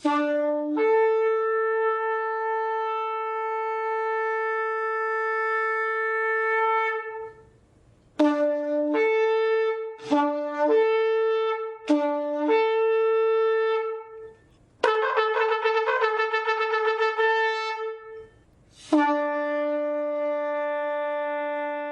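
Shofar (ram's horn) blown in a series of calls: a long blast that breaks from a low note up to a higher one, a run of short broken blasts, a fast wavering blast, then a final long blast held on the low note.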